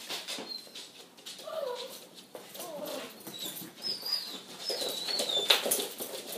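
Two puppies playing rough: short high whines and yelps mixed with scuffling knocks, the loudest knock about five and a half seconds in.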